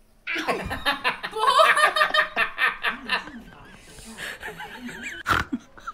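People laughing hard in quick bursts, trailing off after about three seconds; a single sharp click near the end.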